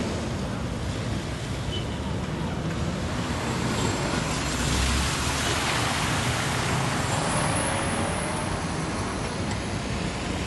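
Cars driving along a flooded street, with the steady rumble of traffic and the splash and hiss of tyres pushing through standing water, loudest as a vehicle passes close about four to seven seconds in.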